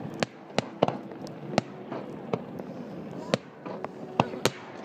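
Fireworks display: aerial shells bursting in an irregular series of about a dozen sharp bangs.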